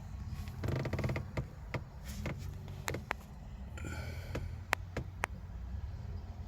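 A scattering of sharp clicks and taps from handling inside a car's cabin, with a short rapid rattle about half a second in and a brief rustle a little past the middle.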